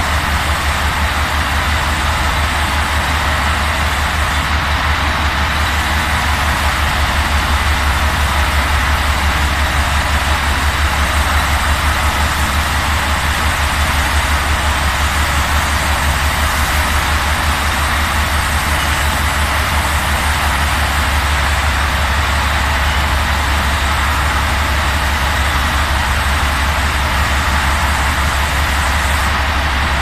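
Steady machinery drone of an industrial liquid-painting line with an overhead conveyor: a strong low hum with a fast pulse under an even hiss, unchanging.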